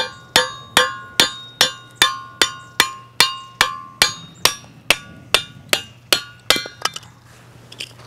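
Hammer blows driving a piece of firewood down onto the wedge blade of a ring-type kindling splitter, a steady run of about two and a half strikes a second, each with a short metallic ring. The blows stop about seven seconds in, once the wood has split.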